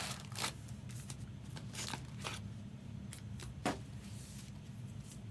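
Foil trading card pack wrappers being torn and crinkled by hand, in short scattered rips and rustles with one sharper click about two-thirds through, over a steady low hum.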